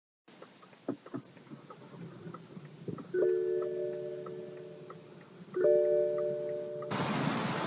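A few light clicks, then a BMW's in-car warning chime sounds twice, about two and a half seconds apart, each a ringing multi-tone bong that fades. Near the end a loud rushing noise starts abruptly.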